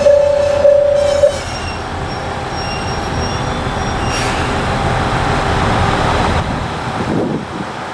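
Railway level-crossing bell ringing in steady pulses, cutting off about a second in, followed by the rumble of a train that swells and then fades.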